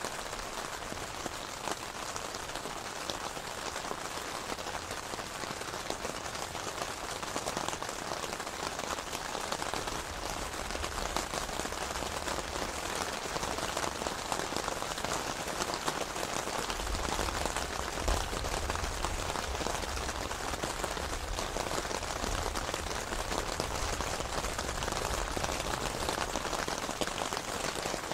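Steady rain from a mountain thunderstorm, a dense hiss of drops. A low rumble comes in about ten seconds in and is strongest a little past halfway.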